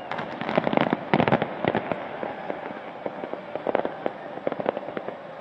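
Fireworks display: rapid runs of sharp pops and cracks from many shells bursting together. The pops are densest in the first two seconds and come again in a cluster about four seconds in.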